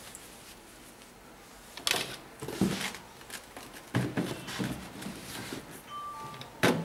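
Handling noise as a sneaker and paper are moved about on a cardboard shoebox: a few short knocks and rustles as the shoe is set down and straightened on the box lid, the loudest knock near the end.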